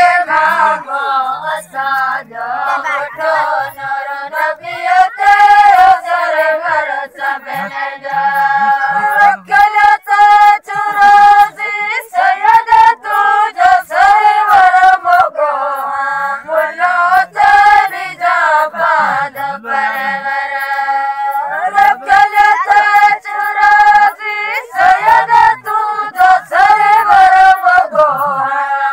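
A group of women singing a Sindhi folk song together in high voices, long held notes between bending phrases, with no instruments heard.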